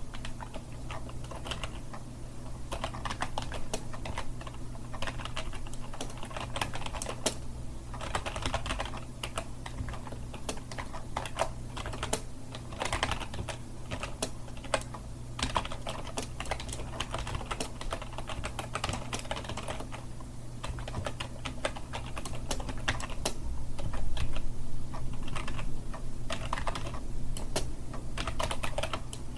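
Continuous typing on a keyboard: fast, irregular key clicks in uneven runs, over a low steady hum.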